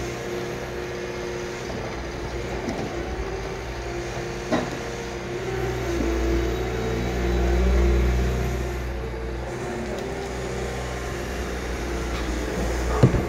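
Liebherr 936 crawler excavator's diesel engine and hydraulics running with a steady hum, the engine working harder for a few seconds in the middle as the upper structure swings and the boom moves. A short knock about a third of the way through and a louder sharp clank near the end.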